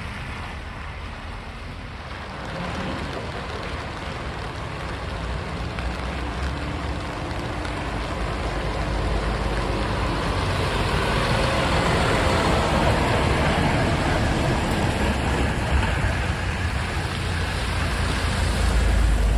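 A large truck's engine running with rain and road noise, growing steadily louder.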